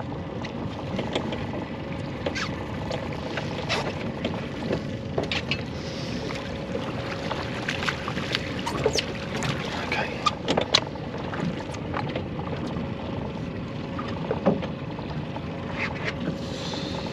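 Small fishing boat at sea: a steady rush of wind and water with a faint steady hum underneath, broken by scattered sharp clicks and knocks, a cluster of them about ten seconds in.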